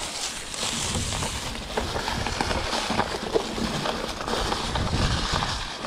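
Mountain bike rolling over dry leaves and twigs: tyres crunching, with many small cracks and snaps over a low rumble.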